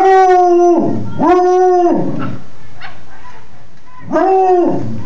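Black and tan coonhound howling, nice and loud: three short howls, each held on one pitch and then dropping off at the end. The first two come back to back, and the third follows after a pause of about two seconds.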